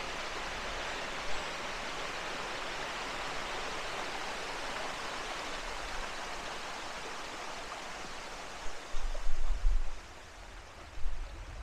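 Water spilling over a small concrete dam and rushing down a stony stream channel, a steady rushing noise that eases a little over the last few seconds. Several loud low thumps on the microphone come near the end.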